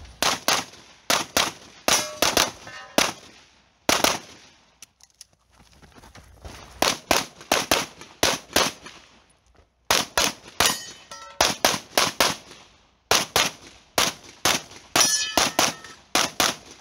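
Open-division competition pistol, a compensated race gun, fired rapidly, mostly in quick pairs, in several strings with short pauses between them. A brief metallic ringing follows a few of the shots.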